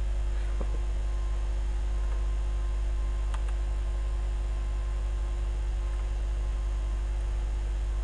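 Steady low electrical hum in the recording, with a couple of faint mouse clicks as a file path is selected and copied.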